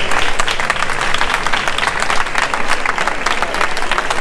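A large crowd applauding, many hands clapping in a dense, steady patter.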